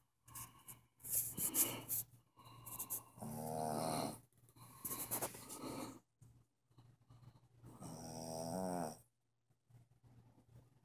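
A sleeping dog snoring loud, a rasping snore on each breath about every one to two seconds.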